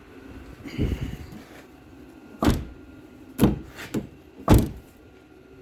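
Nissan 350Z door handle and latch being worked: a series of short clunks and clicks, about five in a few seconds, the loudest near the end. This is the newly replaced door handle being tried out.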